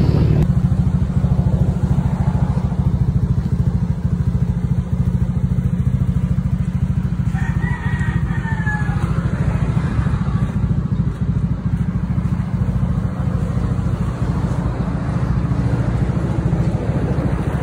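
Honda PCX 150 scooter's single-cylinder four-stroke engine idling steadily. A rooster crows faintly about eight seconds in.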